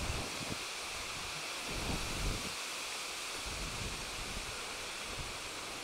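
Wind buffeting the microphone: uneven low rumbles that come and go over a steady outdoor hiss.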